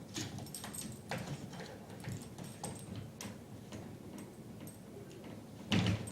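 Irregular light clicks and taps, with one louder sudden knock or thud shortly before the end.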